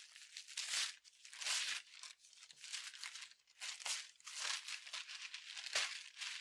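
Newspaper masking, stiff with paint overspray, being torn and peeled off a car window by hand: crinkling and ripping paper in a series of short rips about a second apart.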